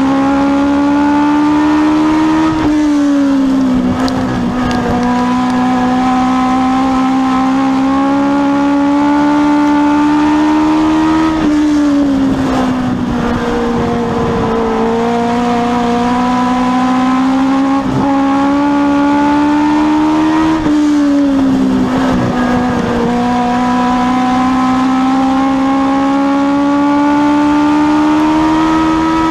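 Legends race car's Yamaha 1250 cc four-cylinder motorcycle engine at full race pace, heard from inside the car: the revs drop three times, about nine seconds apart, as the driver lifts for the turns, then climb steadily down each straight.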